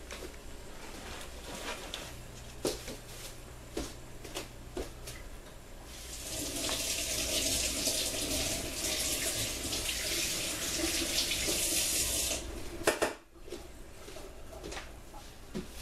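Kitchen faucet running cold water for about six seconds, starting about six seconds in, then shut off abruptly, with a sharp click just after.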